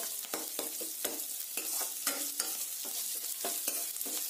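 Chopped shallots frying in a little oil in a stainless steel kadai, with a steady sizzle. A steel spoon scrapes and clicks against the pan several times a second as they are stirred.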